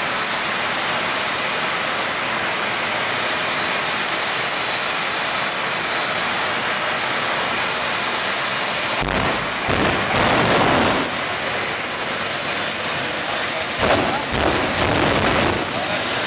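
Jet dragster's turbojet engine idling: a steady high whine over a loud rush of exhaust. Low rumbles swell twice, about nine and fourteen seconds in.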